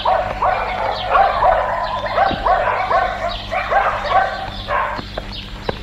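A dog barking rapidly and repeatedly, about three barks a second, easing off near the end as a few sharp knocks come through.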